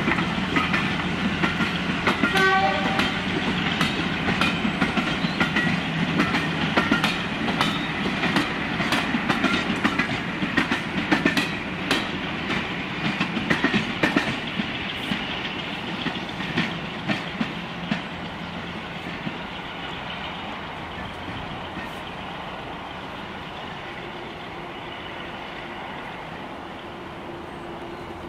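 A train of passenger coaches running past close by, its wheels clicking rhythmically over the rail joints with a steady rumble underneath. The clicking and rumble die away over the last ten seconds as the train draws off.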